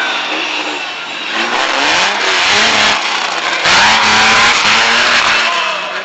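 Toyota Autana (Land Cruiser 80-series) 4x4 engine revving hard at full throttle as it ploughs through deep mud, in two surges: one about a second and a half in and a louder one from a little past the middle.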